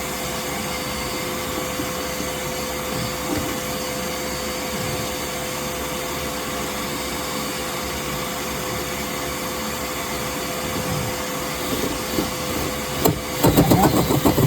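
Vacuum running steadily with a constant whine, as used for dryer vent cleaning. About a second before the end, a louder rattling mechanical noise starts over it.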